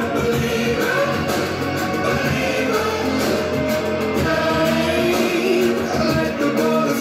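Pop-rock music with drums and held, wordless choir-like vocals.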